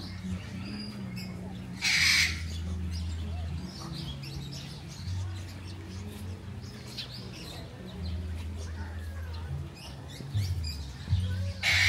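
Parrots squawking, two short loud harsh calls about two seconds in and near the end, over scattered small bird chirps. Soft background music with a low bass line plays underneath.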